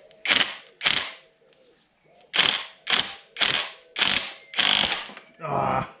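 Ratchet spanner being worked in quick strokes: two strokes, a pause, then a steady run of six strokes about two a second, each a burst of rapid clicking, ending with a shorter, more tonal grating stroke near the end.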